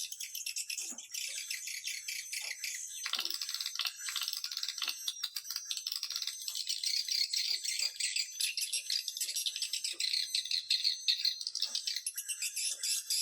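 Swiftlet call recording: a dense, continuous high-pitched chittering twitter of many overlapping fast clicks and trills. It is a lure call played to draw swiftlets into a nesting house.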